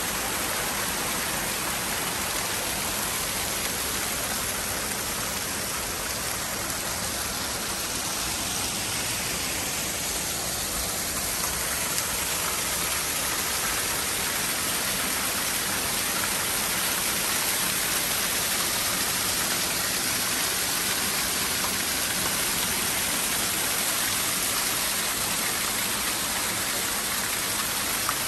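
Water cascading over stone walls and splashing into pools below, a steady rushing hiss of falling water.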